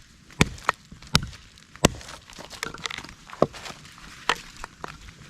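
Hatchet chopping pine into kindling: a string of sharp, irregularly spaced strikes, with a pause of more than a second near the middle.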